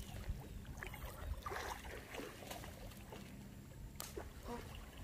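Water lightly sloshing and trickling, with one sharp knock about four seconds in.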